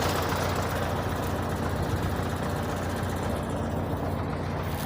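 Truck diesel engine idling steadily with the light knock it has had for four years; the owner has already ruled out the camshaft key, the injection pump and the injectors as the cause.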